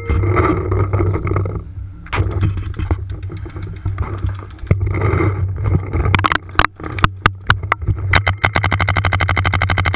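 Electronic paintball marker firing rapid strings of shots, about a dozen a second, with a few single loud shots in between. The marker and gear scrape against the inflatable bunker.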